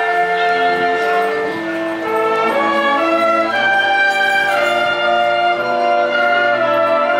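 A high school wind band of saxophones, clarinets, brass and tuba playing, with held chords that change every second or so.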